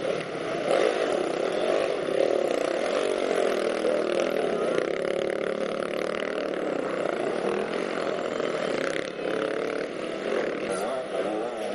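Several enduro motorcycle engines running and revving together, their pitch rising and falling as the riders climb.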